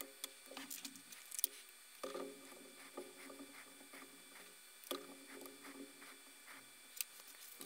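Flush cutters snipping the new capacitor leads on a power supply circuit board, a few sharp clicks with the loudest about a second and a half in. A cotton swab then scrubs the solder joints on the board, a soft scratchy rubbing.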